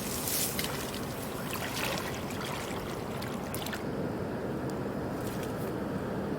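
Steady rush of water in a river channel, with water sloshing as someone wades through it for the first few seconds, then a steadier flow.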